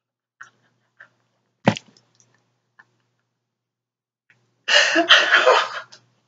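A man stifling laughter behind his hand. There are a few short puffs of breath, a sharper one just under two seconds in, then a burst of muffled, pulsing laughter for about a second near the end.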